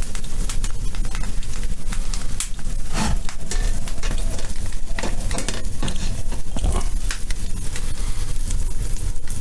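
Fire crackling and popping in a boiler's firebox as it is being lit, with a steady low rumble underneath and irregular sharp crackles.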